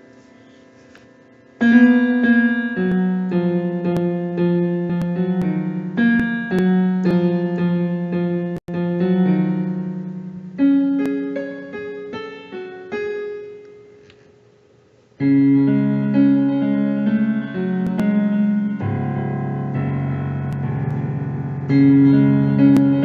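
Casio CTK-6000 keyboard playing a tune in a piano voice, a melody over chords. It starts about a second and a half in, dies away a little past the middle and starts again a moment later.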